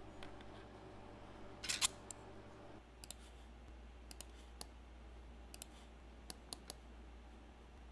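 Thin 3D-printed plastic part clicking and rattling as it is handled on a printer bed, over a low steady hum. The hum stops about three seconds in, and scattered sharp single and double computer-mouse clicks follow.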